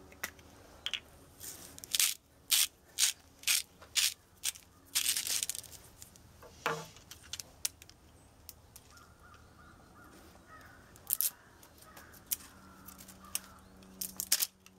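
Pepper mill being twisted, a quick run of sharp crunching clicks for the first several seconds, with a few more later on.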